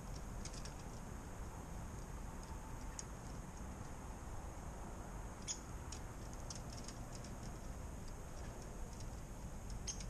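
Faint, scattered light ticks and clicks of birds pecking at seed on a feeder, a few here and there with a small cluster past the middle, over a steady low background rumble.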